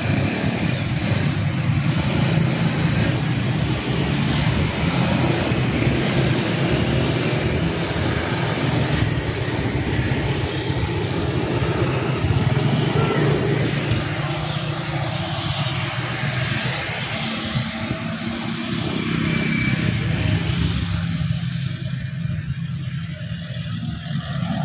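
Road traffic of motor scooters and cars driving across a railway level crossing close by, their engines running in a steady stream that thins out a little near the end.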